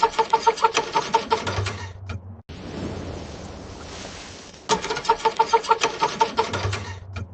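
A car engine being cranked over by its starter in the cold without catching, a fast rhythmic chug of about six pulses a second. It comes in two attempts of about two seconds each, each ending in a brief low hum and an abrupt stop, with a steady windy hiss between them.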